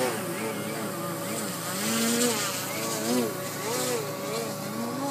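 Electric model aerobatic plane's Motrolfly 2820 brushless motor and Xoar 13x7 propeller buzzing in flight, the pitch rising and falling again and again.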